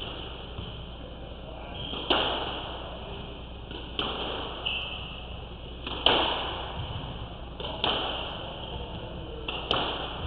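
Squash rally: the ball cracking off racquets and the court walls about every two seconds, each hit ringing out in the court.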